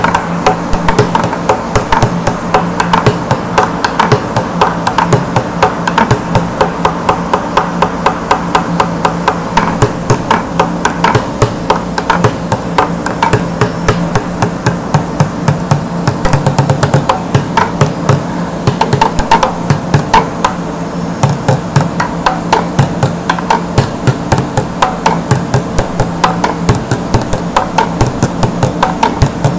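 Upturned plastic bucket drummed with rapid, continuous strokes and frequent loud accents.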